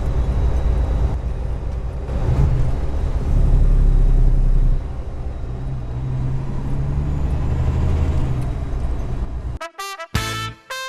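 Motor vehicle on the move: a steady low engine drone with road rumble, heaviest about three to five seconds in. It cuts off near the end, and brass music starts.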